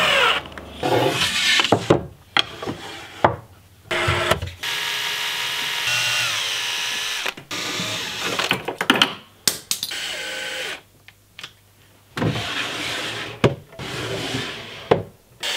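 Cordless drill-driver driving screws in short runs, its motor whining up and cutting off abruptly, with clicks and knocks of parts being fitted between the runs.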